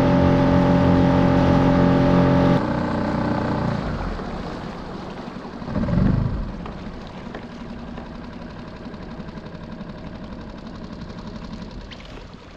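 Small skiff's outboard motor running at a steady pitch, then shut off about two and a half seconds in. The skiff coasts on with water washing along the hull, with a brief louder rush around six seconds in.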